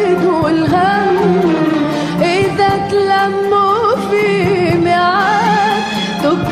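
Music: a Tunisian tarab song with an ornamented melody that wavers and slides in pitch over a steady low drone.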